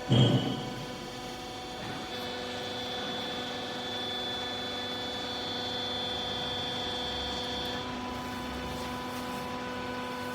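Hydraulic baler's electric motor and pump running with a steady hum, after a loud clunk right at the start. A faint high whine joins about two seconds in and fades near eight seconds.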